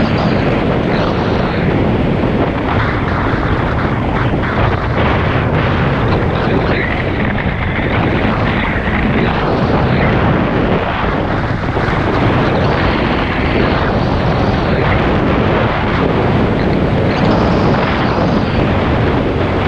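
Wind buffeting a moving rider's camera microphone: a loud, steady rushing rumble that rises and falls a little.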